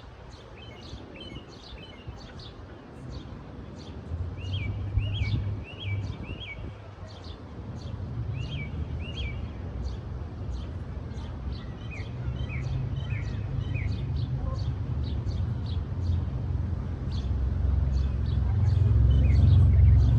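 Small birds chirping over and over in short, quick notes, over a low rumble that grows louder toward the end.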